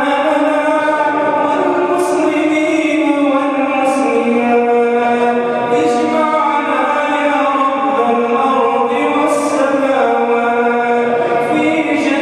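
Male voice chanting an Islamic supplication (du'a) through a microphone, in long, drawn-out melodic notes that step and glide in pitch.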